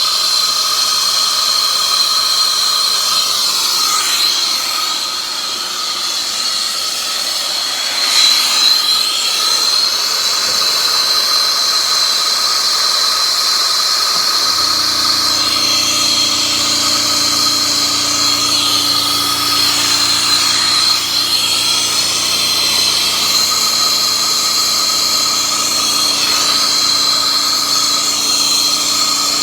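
Soldering torch flame burning steadily with a hissing rush and a high whistle. About halfway through, a steady low hum joins it.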